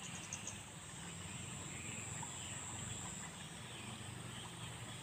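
Outdoor riverside ambience: a few quick high insect chirps at the start, then a high, steady insect buzz from about one and a half to three seconds in, over a low steady hum.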